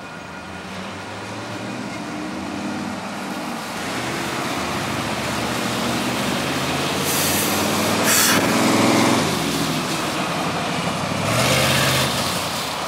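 Road vehicles driving past close by, a car and then a pickup truck, each swelling to a loud rush of tyre and engine noise as it goes by; the loudest passes come about seven seconds in and again near the end.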